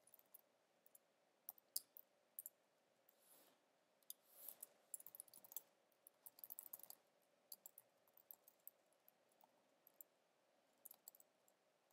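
Faint computer keyboard typing and mouse clicks: scattered single clicks, with a quick run of keystrokes about halfway through.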